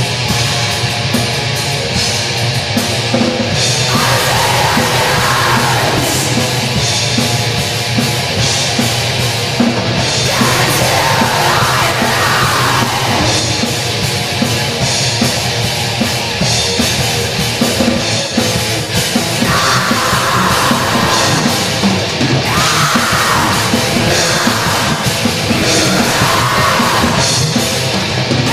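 Raw black metal: distorted guitars and drums in a dense, continuous wall of sound, with harsh, throat-ripping shrieked vocals coming in several drawn-out phrases over it.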